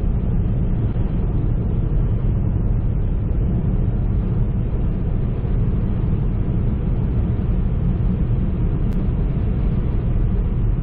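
Steady road rumble of a car being driven, heard from inside the cabin.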